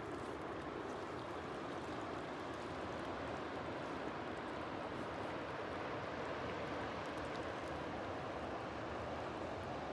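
Swollen river running fast over rocks and through rapids: a steady, even rush of water.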